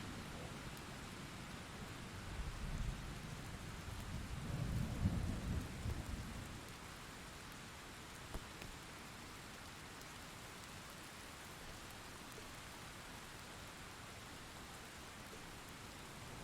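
Thunderstorm: steady rain with thunder rumbling low in two rolls over the first six seconds, the louder one about five seconds in, then rain alone.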